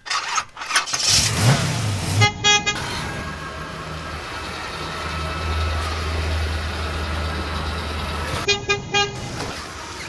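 A car horn honks in a quick run of short toots, about two seconds in and again near the end. Between the two runs is a steady low engine-like hum.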